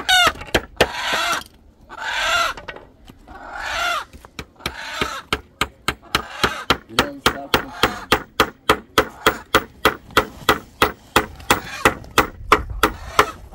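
Quick, regular knocking on wood, about four strikes a second, starting about five seconds in, after a few short calls.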